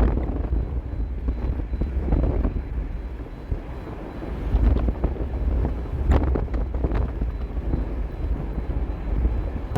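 Wind buffeting the microphone, a low rumble that swells and eases in gusts, with a sharp click about six seconds in.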